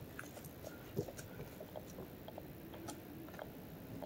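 Irregular crunches and small knocks of footsteps on a rocky dirt mountain trail, with one louder thump about a second in.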